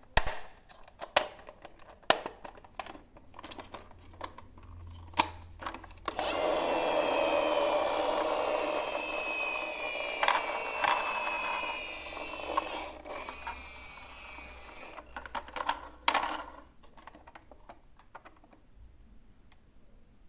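Plastic toy cars clicking and clattering, then a toy car's wheels whirring along a track for about nine seconds, slowly falling in pitch, followed by a few more clicks.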